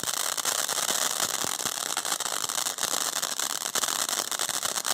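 Firework fountain spraying sparks: a loud, steady hiss dense with rapid crackles.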